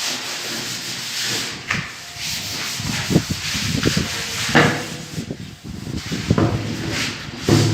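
Sandpaper rubbing over wood in uneven strokes: a puttied wood surface being sanded smooth.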